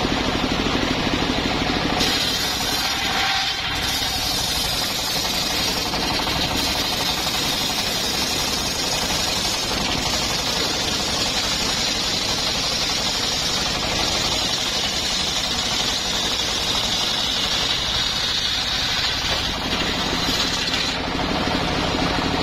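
Engine-driven circular sawmill blade cutting lengthwise through a jowar hardwood log, a steady hissing cut that starts about two seconds in and ends shortly before the end, with the engine and blade running steadily before and after.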